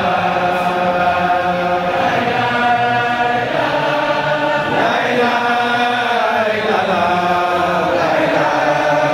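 Men's voices chanting together in unison: a devotional chant of long, drawn-out notes that glide up and down without a break.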